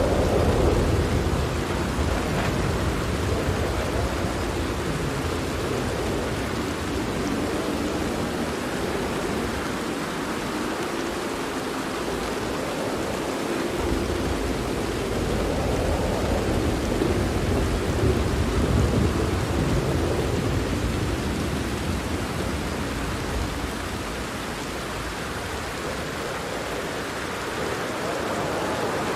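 Steady heavy rain falling on a tent, with low rolling thunder that swells near the start and again around the middle before fading.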